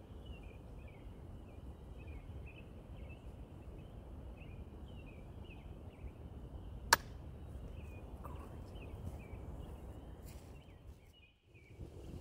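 Outdoor ambience: a low rumble with constant faint, high chirping, and one sharp click about seven seconds in.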